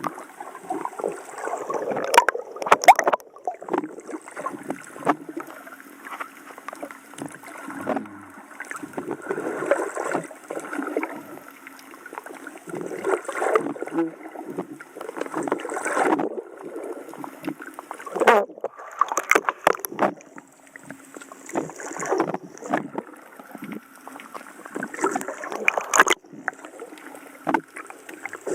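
Seawater sloshing and gurgling around a snorkeller's camera at the water's surface, swelling in surges every few seconds.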